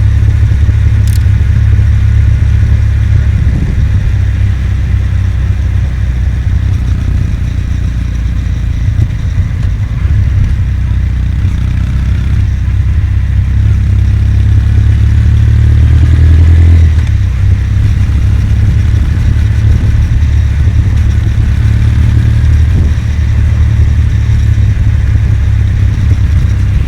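Kawasaki W800 motorcycle's air-cooled parallel-twin engine running under way, heard over heavy low wind rumble on the microphone; about two-thirds of the way through the engine note briefly swells, then drops.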